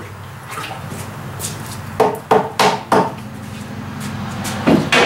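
Wooden stirring stick knocking, a quick run of about five knocks about two seconds in and one more near the end as it is set down.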